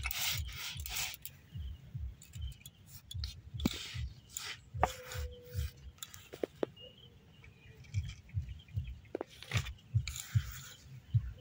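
Stone roller rolled back and forth over crushed biscuit crumbs on a flat grinding stone (shil-nora), making a dull low rubbing in repeated strokes with a few light clicks. Short gritty scraping comes near the start and again near the end as the biscuit powder is gathered off the stone.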